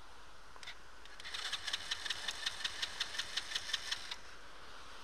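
Small ATV engine turned over by its electric starter for about three seconds, chugging about five or six times a second without catching, after a single click. The engine stalled and won't start after being swamped by a wave.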